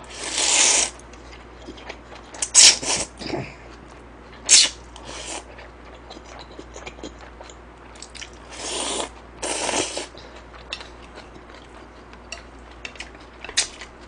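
A person slurping jjamppong noodles with loud sucking slurps, the longest at the start and about nine seconds in, with chewing and small mouth clicks between them.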